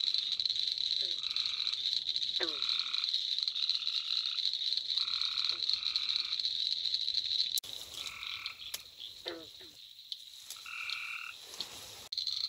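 Frogs calling: short calls repeat about once a second, with a few falling chirps, over a steady high-pitched chorus. About two thirds of the way through the sound drops quieter for several seconds, then comes back near the end.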